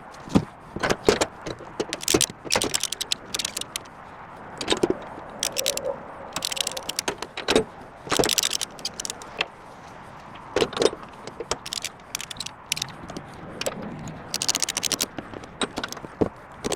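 Ratchet straps being hooked and tightened over a crate on a trailer: quick runs of ratchet clicks, with metal hooks clanking and rattling in between.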